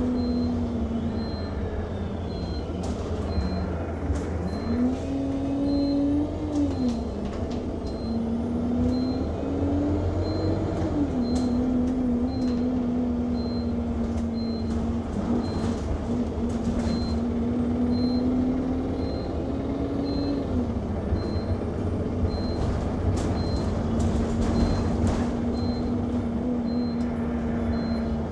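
Inside an Enviro 200 MMC single-deck bus: a short high-pitched beep repeats about every 0.7 seconds without stopping. Under it the bus's engine runs with a low rumble, its pitch rising and dropping back several times as the bus pulls away and slows, and the body rattles and clicks.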